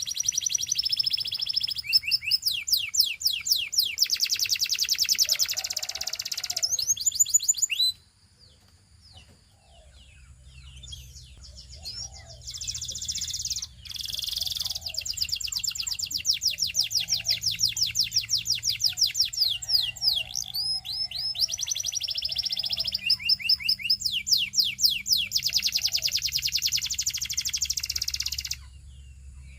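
Russian canary singing: long runs of fast, high-pitched trills of repeated sweeping notes. The song breaks off about eight seconds in, resumes a few seconds later, and stops shortly before the end.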